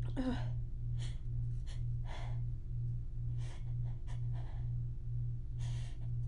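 A woman's breathing between sneezes in a sneezing fit: a short voiced sigh falling in pitch at the start, then a string of quick breaths about every second. Underneath runs a steady low hum that throbs about twice a second.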